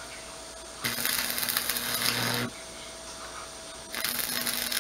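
Electric arc welder welding steel rebar: two bursts of crackling, sizzling arc, the first about a second and a half long and the second starting near the end, each with a low hum from the welder underneath. The welds are being laid over a wider area because the earlier ones were too weak and broke loose.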